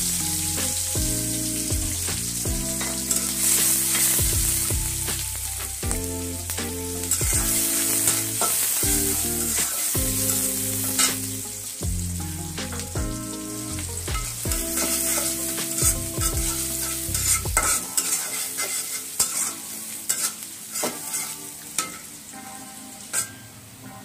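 Chopped onion sizzling in hot oil in an aluminium karahi, stirred with a metal spatula that scrapes and clicks against the pan. Low steady tones, changing every second or so, run along with it until about 18 s in.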